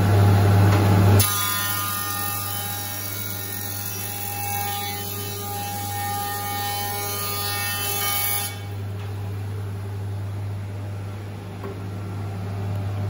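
iTECH 300 spiral-block planer thicknesser running with its power feed engaged. From about a second in, a board is planed to thickness with a steady hiss and several whining tones. These stop about eight seconds in as the board clears the cutter, and the machine runs on more quietly.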